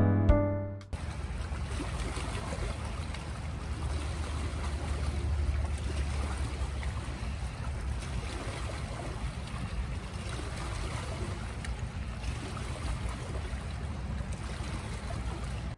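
Steady rushing ambient noise with a low rumble, with no clear tones or rhythm; the tail of a piano tune fades out about a second in.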